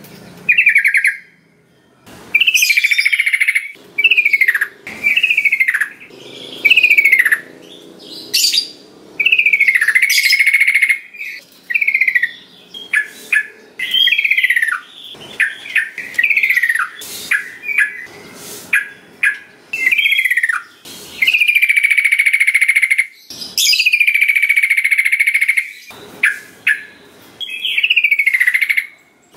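Yellow-vented bulbul (trucukan) singing: loud, bubbly phrases of quick falling notes repeated every second or so with short gaps, and a few longer, drawn-out phrases later on.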